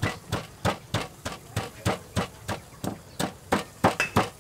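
Stone pestle pounding ingredients in a granite mortar: a steady rhythm of sharp knocks, about three strikes a second.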